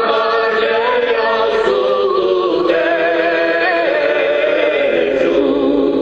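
Background music of several voices singing together in a choir-like chant, held notes that shift in pitch.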